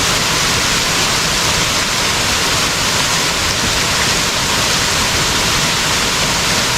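Rushing water from a waterfall, a loud, steady, unbroken rush.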